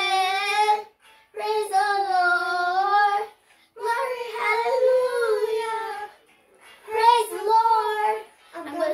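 A young girl singing a praise chorus without accompaniment, in four long held phrases with short silent breaths between them.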